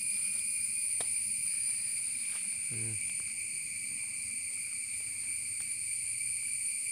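Steady, high-pitched insect chorus chirring without a break, several pitches held at once.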